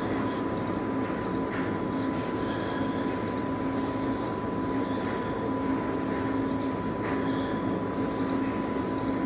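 Short high electronic beeps from a vending machine's service keypad, one with each press of the price-up key, about one every 0.7 s with a few longer gaps, over the steady hum of the running machine.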